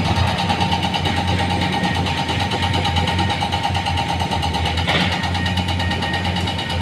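Heavy-equipment diesel engine running steadily, with a high whine over it and one brief knock about five seconds in.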